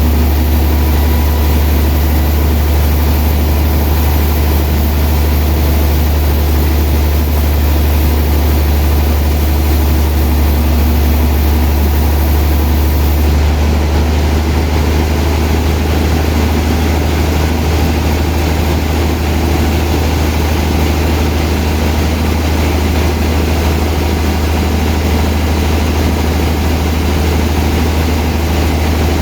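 Sawmill machinery running steadily: a loud, constant deep hum under an even whirring noise.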